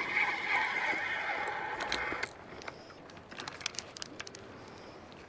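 Fishing reel winding in a hooked mackerel: a dense whirring buzz for about two seconds that stops suddenly, followed by scattered light clicks and taps.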